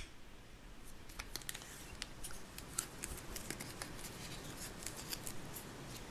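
Plastic Play-Doh cans and their snap-on lids being handled and opened: faint scattered clicks and light knocks of plastic.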